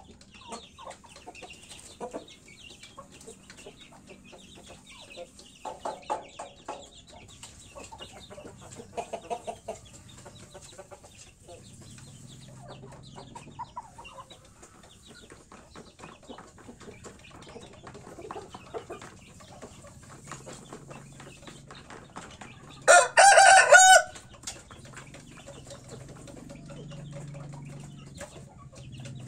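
Domestic chickens clucking softly on and off; a little over twenty seconds in, one bird gives a single loud call lasting about a second.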